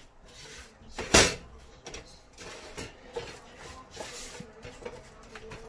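A spatula stirring and scraping a roasting gram flour, turmeric and sugar mixture in a pan, with one loud knock about a second in.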